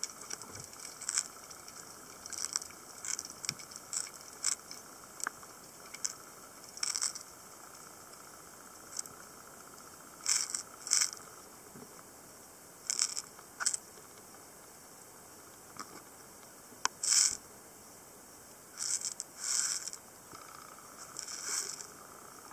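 Underwater recording in a cave with a faint steady hiss. Irregular short, hissy scraping sounds break through it, with a few sharp clicks, the loudest about three-quarters of the way through.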